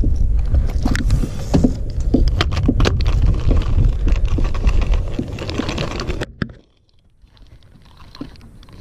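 Low rumbling handling noise on a body-worn camera microphone, with scattered clicks and knocks as fishing tackle and gear are handled. About six seconds in the rumble cuts off suddenly, leaving near quiet.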